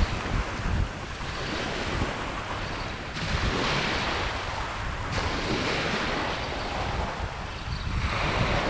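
Small waves washing up a sandy beach. The hiss swells and eases several times, with wind buffeting the microphone.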